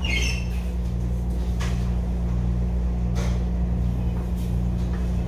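Steady low hum inside a MARTA Hitachi CQ311 railcar, with two short sharp sounds about a second and a half apart.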